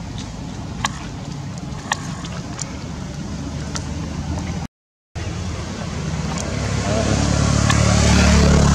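Steady low outdoor rumble, with two faint clicks early on, a brief break of silence partway through, and then a swell that grows loudest near the end.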